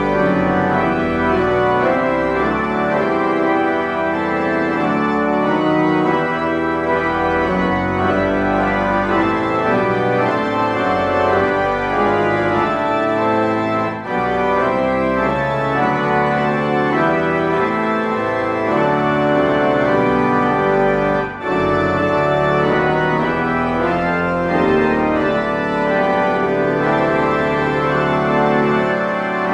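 Organ playing a hymn in held chords, with short breaks between phrases about 14 and 21 seconds in.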